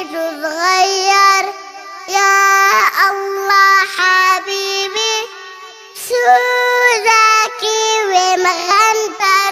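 Young girl singing a children's song in phrases of held, gliding notes, with short breaks about two and five seconds in.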